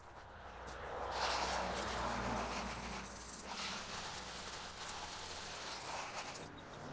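Water from a garden hose spraying against a garage door: a steady hissing spatter that swells about a second in and dips briefly a couple of times as the spray moves.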